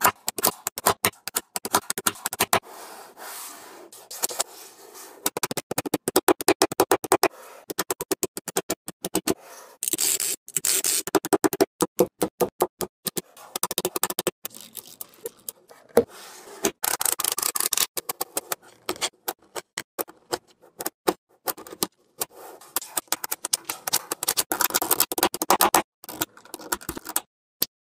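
Small magnetic balls clicking and snapping together in rapid runs of sharp clicks, with short pauses, as strips and panels of balls are pressed into place by hand.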